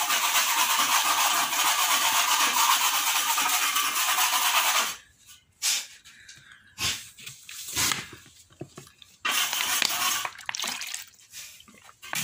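Spray gun hissing steadily for about five seconds as it sprays a coating onto a ceiling, then in shorter bursts switched on and off.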